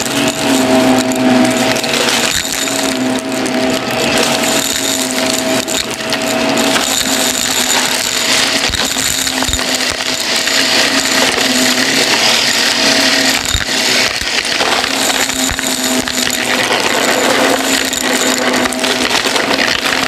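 Shark bagless upright vacuum cleaner running on carpet. Its motor gives a steady hum under a dense, crunchy crackle and rattle of small debris being sucked up through the nozzle.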